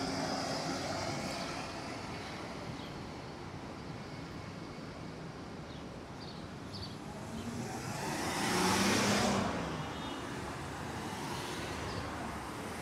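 City street traffic: a steady wash of car noise, with one vehicle passing close and loudest about nine seconds in.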